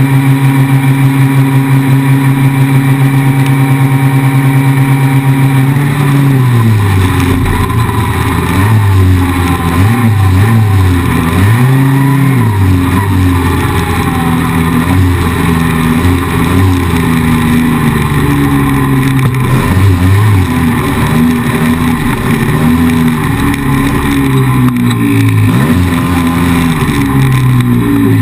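ATV engine running at a steady high speed for the first six seconds or so, then rising and falling in pitch again and again as the rider works the throttle and gears.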